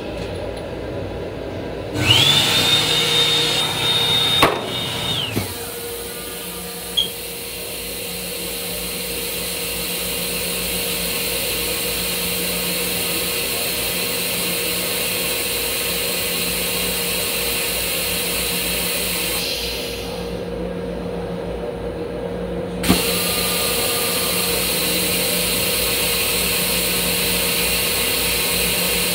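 A loud whoosh with a high steady whine for about three seconds, ending in a click, then a steady mechanical hum with a low drone inside a Long Island Rail Road M7 railcar restroom; a soft click about twenty-three seconds in.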